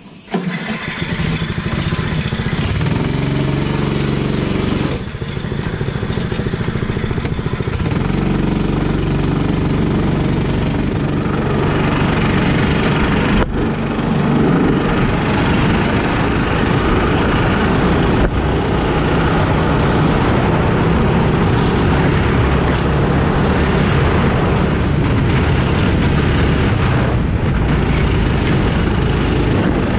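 Go-kart engine revving as the kart pulls away and then running under changing throttle, rising and falling in pitch, heard close from the driver's seat.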